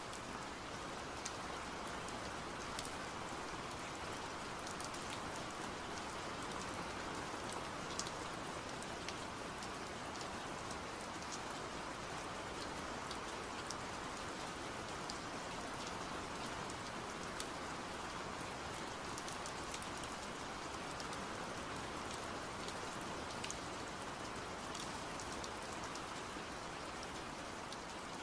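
Steady rain-like hiss with faint scattered crackles, even and unchanging throughout.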